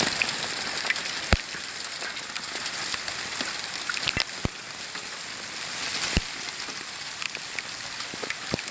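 Hailstorm: a dense, steady hiss of hail and rain pelting down, with scattered sharp knocks from individual hailstones striking hard, the loudest about a second in and several more between four and six seconds in.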